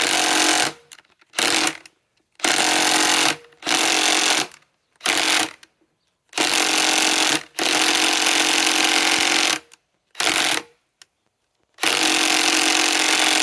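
DeWalt DCF891 mid-torque cordless impact wrench hammering on a lag screw in repeated bursts of a second or two, the trigger released and squeezed again between them. The screw is stuck fast, frozen into cold wood, and is not backing out.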